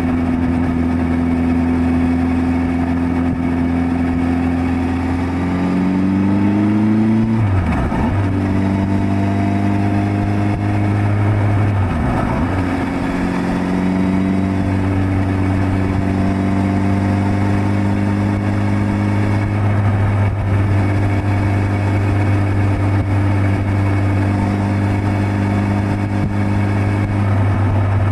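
Suzuki GSX1300R Hayabusa's inline-four engine under way. The revs climb about five to seven seconds in, then the pitch drops briefly twice, about eight and twelve seconds in, as it shifts up. After that it holds a steady cruising pitch.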